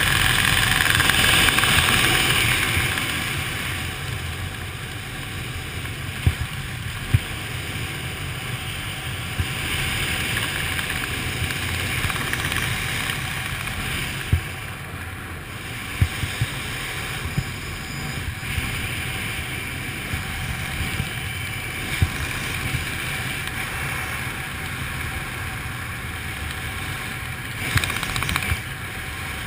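Steady rush of wind over a GoPro's microphone during a parachute canopy descent, a little louder for the first few seconds, with a few sharp single knocks scattered through it.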